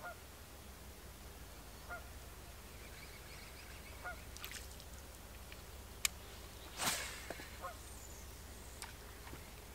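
Faint goose honks, short single calls every couple of seconds. About seven seconds in there is a brief, louder rush of noise.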